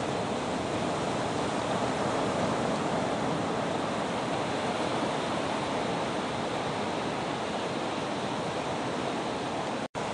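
Ocean surf breaking, a steady, even wash of waves, with the sound dropping out for an instant near the end.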